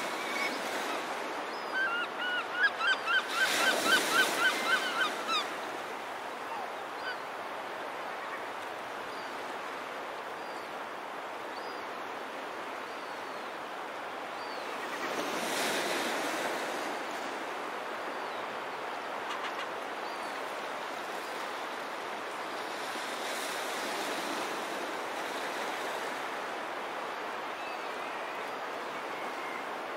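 Gulls calling in a fast run of short repeated calls, about four a second, for a few seconds, with a few faint calls after. Beneath them is the steady wash of small surf, which swells up twice.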